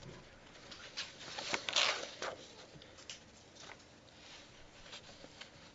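Sheets of paper rustling and being shuffled, most of it in a stretch of about a second and a half, followed by a few faint rustles.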